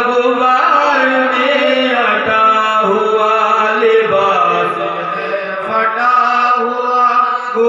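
Male voice singing an Urdu devotional noha in praise of Hussain, the melody gliding from note to note over a steady harmonium drone.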